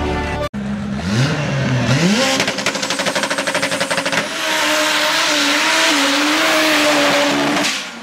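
Toyota AE86 drag car's engine revving up, then stuttering rapidly at high revs for about two seconds, then held at high, steady revs under a loud rushing hiss. It cuts off abruptly near the end.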